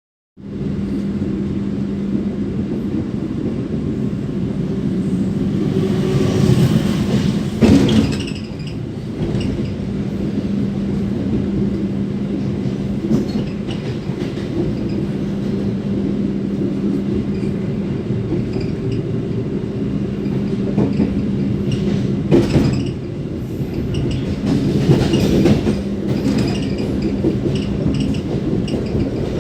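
Passenger carriage running at speed, heard at the gangway between cars: a steady rumble of wheels and bogie with a steady hum, rattling and clacking throughout, and sharp knocks about 8 seconds in and again near 22 seconds. Mixed in is a squeaking, jingling rattle from the carriage bogie, unusual for these wheels and a possible sign of a problem.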